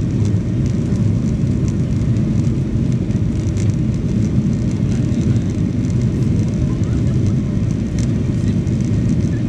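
Cabin noise of a Boeing 737-800 rolling along the runway: a steady low rumble of its engines and wheels, with no spool-up, and a couple of faint clicks.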